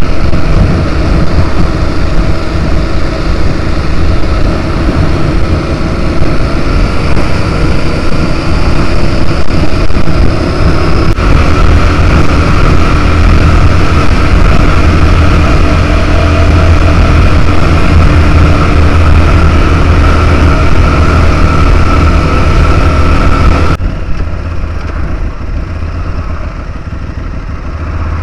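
Motorcycle riding at speed, heard from the rider's seat: a steady engine rumble mixed with heavy wind and road noise. About four seconds from the end the sound suddenly drops much quieter and duller.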